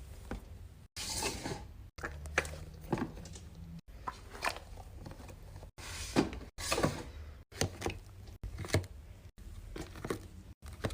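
Fidget toys being handled and played with: irregular clicks, snaps and short rattles of small plastic and metal parts. The sound breaks off abruptly every second or so at cuts between short clips.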